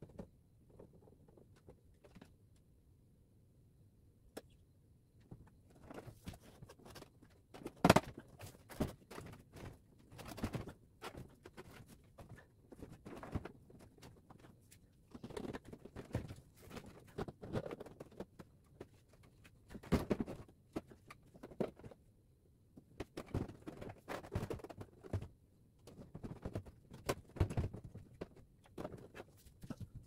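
Irregular clicks, knocks and rattles of hands working on the plastic panels and fittings of a Samsung floor-standing air conditioner. They start a few seconds in, and the loudest knock comes about eight seconds in.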